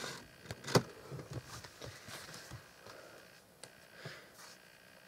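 Pages of a glossy magazine being handled and turned: soft paper rustling with a few light clicks, the sharpest a little under a second in.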